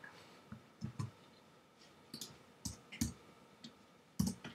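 Computer keyboard and mouse clicking while code is pasted and edited: about eight faint, irregularly spaced clicks, the loudest near the end.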